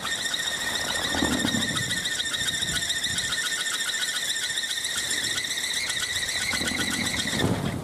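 Kolecer, a wooden wind propeller on a tall bamboo pole, spinning in the wind and giving off its shrill, steady whine (the 'ngereng') with a fast flutter. The whine cuts off shortly before the end.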